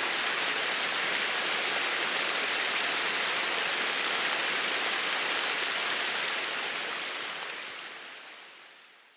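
A steady rushing hiss, with no distinct calls or knocks, fading out over the last three seconds.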